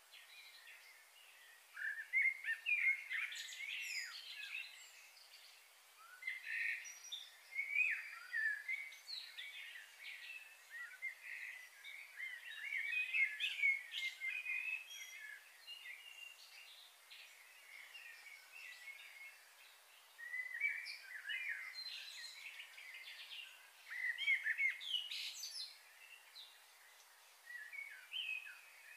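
Small birds chirping and twittering in repeated bouts over a faint steady hiss of background noise.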